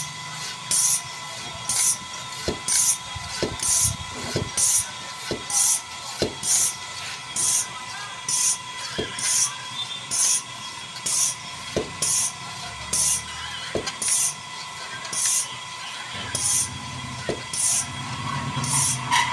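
Short hisses of air, repeating evenly about once a second, over a faint steady high tone, with a few soft knocks in between.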